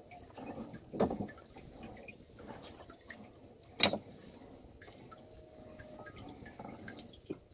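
Water dripping and splashing in the bottom of a wooden fishing boat, with two sharp knocks, one about a second in and one near four seconds in.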